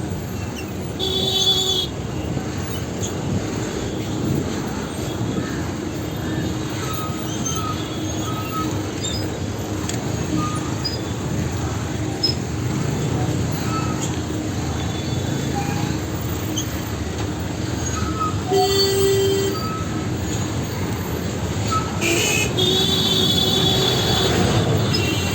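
Busy street traffic noise with a steady wash of engines and tyres. Short, high-pitched vehicle horns sound about a second in and again near the end, the last one held for a few seconds.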